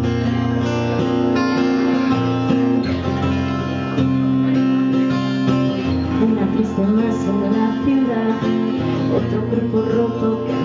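Acoustic guitar strumming chords, the instrumental intro of a song played live; a wavering melody line joins about halfway through.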